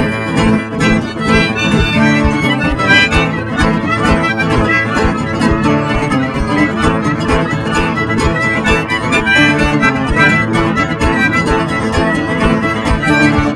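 Instrumental break of a country band song: the band plays on with a steady beat and no singing, between the chorus and the next verse.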